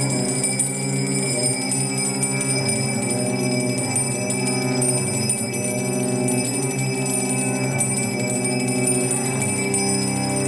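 Tibetan finger cymbals (tingsha) ringing with steady high tones over a string quartet holding long chords that shift every second or two.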